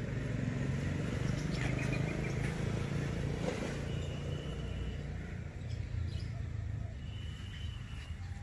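Birds chirping briefly a few times over a steady low rumble.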